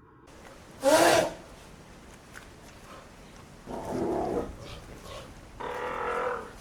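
An animal calling: one short, loud call with a gliding pitch about a second in, then two longer, lower calls a couple of seconds apart.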